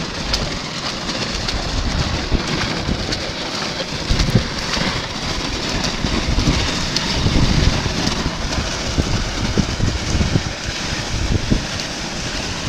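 Ice-fishing sled loaded with a covered portable shelter dragged across wet, melting ice, its runners scraping steadily, with wind buffeting the microphone in frequent low thumps.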